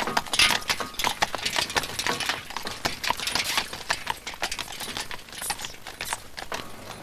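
Horse hooves clopping on a road with the rattle and clink of a horse-drawn wagon and its harness: an irregular run of sharp knocks and clicks, several a second.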